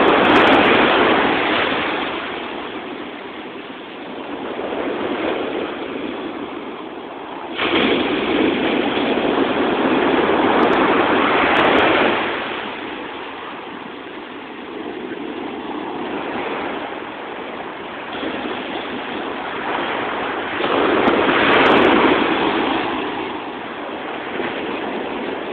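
Water rushing across beach sand as it carves a channel, a steady rush of noise. It swells louder near the start, jumps up suddenly about a third of the way in, and swells again later.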